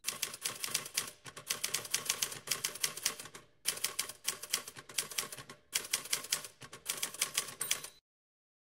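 Typing sound effect: rapid key clacks, about five or six a second, in runs broken by brief pauses, stopping abruptly about eight seconds in.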